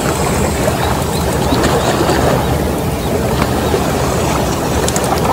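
Steady wind rumbling on the microphone, mixed with the wash of the sea against the rocky shore, with a few faint clicks.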